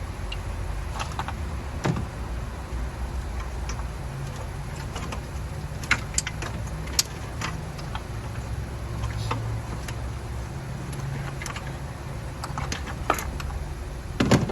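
Scattered metallic clicks and knocks of hand tools and parts during engine teardown, about half a dozen sharp ones, over a steady low hum.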